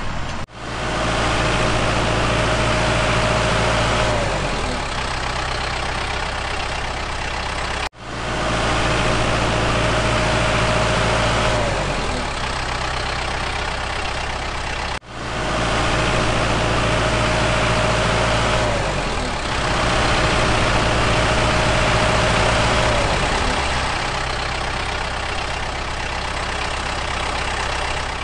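Vehicle engine idling, laid on as a looped sound effect. The same few seconds of steady engine hum repeat, with abrupt cuts about every seven to eight seconds.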